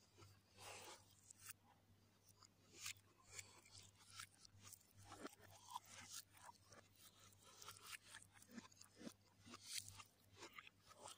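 Faint close-up eating sounds played in reverse: chewing and crunching with many small wet clicks, mixed with fingers scraping and gathering noodles on a plate.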